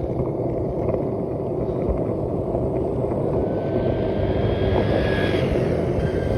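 Skateboard wheels rolling fast down an asphalt slope: a steady, loud rumble. A faint high whine comes in about halfway through and fades out.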